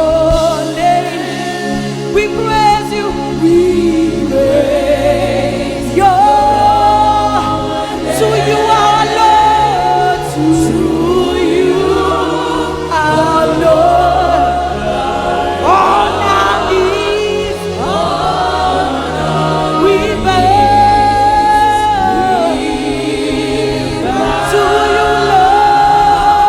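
Gospel worship music: a choir singing a melody over sustained low instrumental notes from the band.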